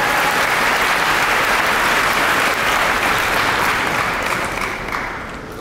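Large audience applauding, a dense steady clapping that dies away near the end.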